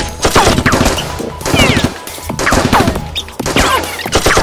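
Bursts of gunfire sound effects dubbed over Nerf blaster shooting, coming about once a second, each followed by a falling whine, with music underneath.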